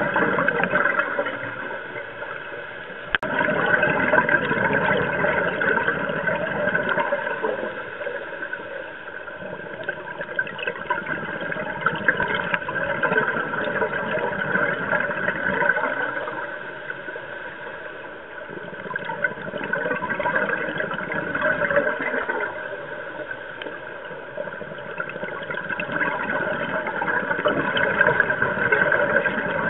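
Underwater: a scuba diver's exhaled bubbles gurgling from the regulator in surges a few seconds apart, over a steady hum. A single sharp click sounds about three seconds in.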